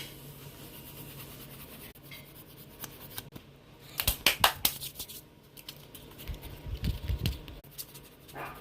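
Photocard packing by hand: scratching, rubbing and tearing of packaging material, with a cluster of sharp scratchy clicks about four seconds in and a few low bumps around seven seconds in.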